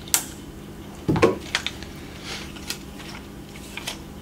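Scattered small clicks and light clacks of hand work as needle-nose pliers seat a snap ring on the plastic belt-wheel shaft assembly of a Polaris 380 pool cleaner. The loudest knock comes a little after a second in.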